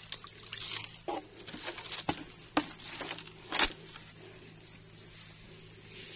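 Dry leaf litter and twigs rustling and crackling as hands search through them while picking mushrooms. There are a handful of short crackles in the first few seconds, then it turns quieter.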